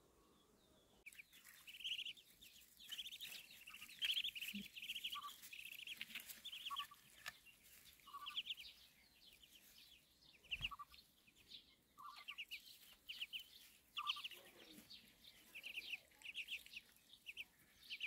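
Muscovy ducklings peeping: runs of short, high chirps in quick clusters, starting about a second in.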